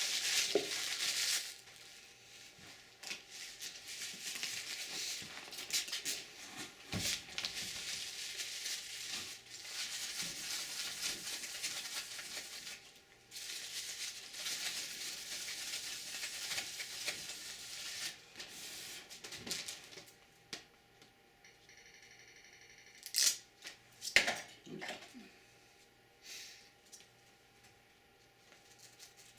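Hands fitting a battery inside a computer case: a long stretch of irregular rustling and scraping. A few sharp clicks come about 23 and 24 seconds in, followed by a quieter stretch.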